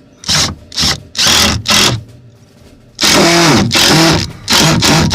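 Makita LXT cordless impact driver driving a screw. The trigger is pulsed in four short bursts, then held for two longer runs from about three seconds in, the motor speeding up and slowing as it hammers the screw straight in.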